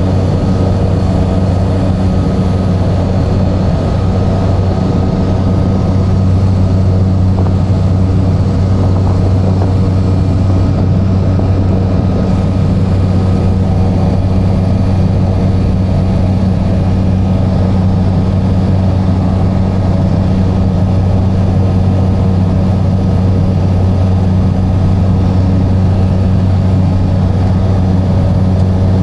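A light aircraft's engine and propeller drone steadily inside the cabin as the plane climbs after takeoff: a loud, even, low hum with steady tones over it.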